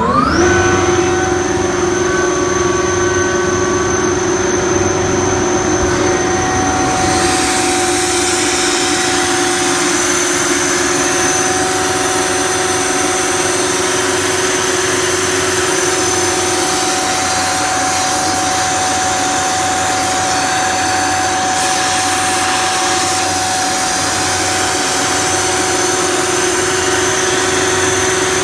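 Ingersoll Rand 40 hp rotary screw air compressor just started: its motor winds up to speed in the first half second, then runs steadily with a hum and a high whine. A louder hiss joins about seven seconds in.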